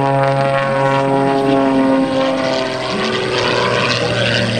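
Super Chipmunk aerobatic plane's piston engine and propeller droning overhead in a steady tone. About halfway through, the drone turns rougher and wavers in pitch as the plane manoeuvres.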